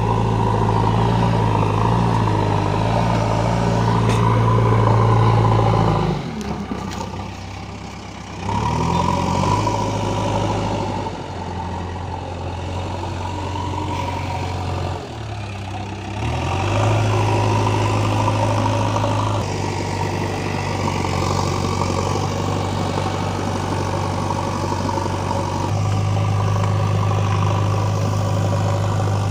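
JCB 3DX backhoe loader's diesel engine running under changing load. It drops off about six seconds in and comes back up two seconds later, dips again briefly about halfway through, and then runs steadily.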